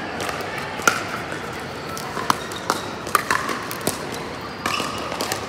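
Pickleball rally: paddles striking a plastic pickleball, about six sharp hits at uneven intervals, echoing in a large concrete-floored hall.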